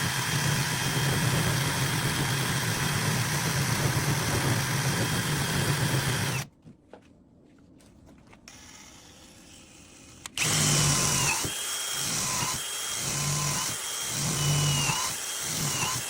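Small electric power tool motor running steadily, cutting out about six and a half seconds in. It starts again about ten seconds in, its whine dipping in pitch briefly several times.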